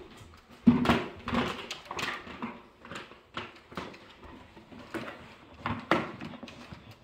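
A plastic bucket knocking and scraping on the floor as a Labrador retriever noses and pushes it around, with irregular knocks and scuffs. The loudest knock comes a little under a second in.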